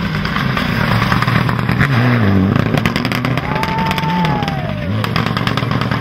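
Mitsubishi Lancer Evolution rally car's turbocharged four-cylinder engine at full throttle. The pitch drops and climbs back several times as the driver lifts off and changes gear, with sharp crackles from the exhaust and a high whistle falling in pitch midway.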